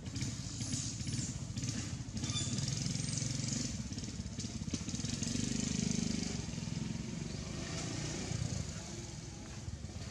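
A low engine rumble that swells to its loudest around the middle and eases off near the end, with a few short high squeaks in the first few seconds.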